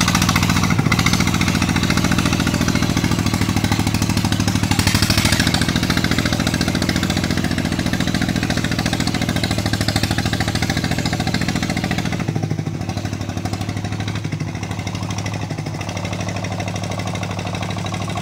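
Single-cylinder diesel engine of a riding two-wheel tractor chugging steadily as its cage wheels till a flooded rice paddy, with a fast, even beat. It grows somewhat quieter about twelve seconds in.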